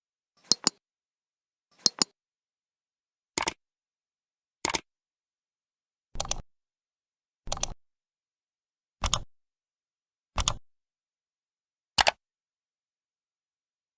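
A click sound effect repeated nine times, each a sharp double click, with about a second and a half of silence between repeats.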